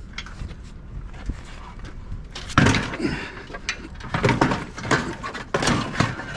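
Heavy salvaged items being shifted and stacked: after a quiet stretch, about two and a half seconds in, a run of irregular knocks, clunks and scrapes as things are moved around.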